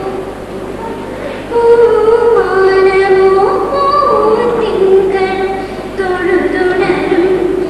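A girl singing a solo at a microphone, holding long notes with gliding pitch; softer for the first second and a half, then fuller.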